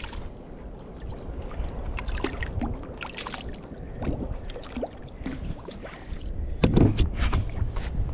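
Water splashing and small knocks beside a kayak as a hooked sea bass is played alongside, over a steady low rumble of wind on the microphone; a louder splash comes about seven seconds in.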